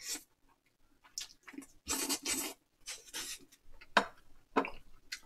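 Close-up eating sounds: rabokki noodles slurped and chewed in short noisy bursts, with two sharp clicks about four seconds in, the loudest sounds.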